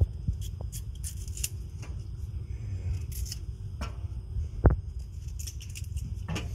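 Small kitchen knife peeling the tough skin off a broccoli stalk: a series of short, crisp scraping strokes as strips of skin are cut away, with a dull thump about two-thirds of the way through.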